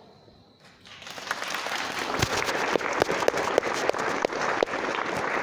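Audience applauding, starting about a second in and swelling, with many sharp single claps standing out.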